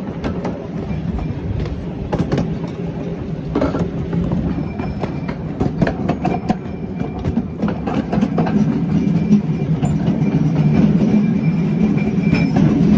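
Train rolling along the track, with irregular clicks and clacks of the wheels over the rails; the running noise grows louder in the second half.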